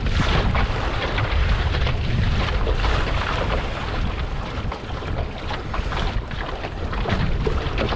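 Wind buffeting the microphone over water rushing and splashing against the bow of a small sailboat under way.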